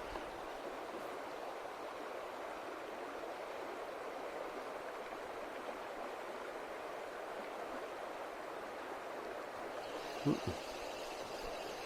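Steady rushing of a mountain river. About ten seconds in, two short knocks sound close together.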